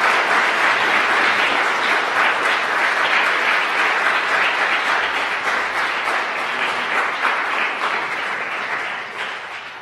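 Audience applauding, many people clapping steadily, fading off near the end.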